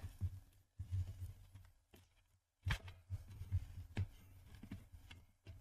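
Faint handling noises: a scattering of short light clicks and rubs as the plastic air tubing and valve parts of an opened blood pressure monitor are moved about by hand.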